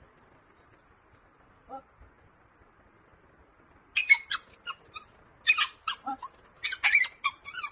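A small dog yapping up at someone above it: a quick series of short, high, sharp barks that begins about halfway through after a nearly quiet start.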